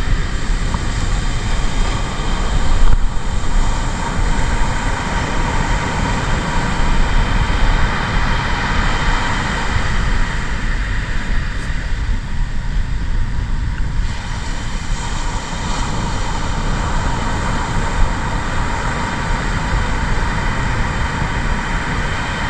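Steady roar of wind buffeting the microphone with breaking surf behind it on the beach, an even rumbling noise with no clear events.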